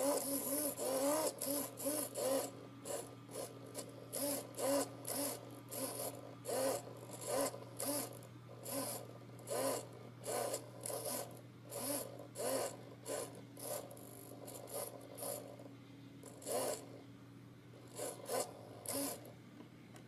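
Small hobby servo's gear motor whirring in many short bursts as it swings its horn back and forth under joystick control. The bursts come in quick succession, then thin out over the last few seconds.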